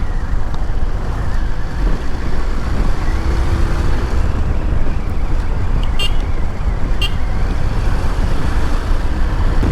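Steady, loud riding noise from a moving motorcycle: wind rumble on the microphone mixed with engine and road noise, with two short high chirps about a second apart past the middle.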